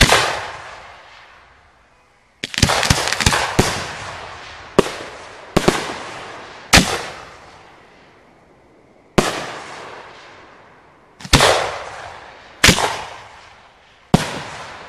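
Aerial firework shells fired from mortar tubes, heard close up: sharp bangs, each ringing out in a long echoing decay. One comes at the start, a quick volley of about five follows about two and a half seconds in, then single shots every one to two seconds.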